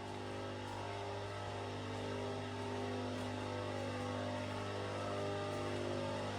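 Background music with sustained, slowly changing notes over a steady low hum, gradually getting louder.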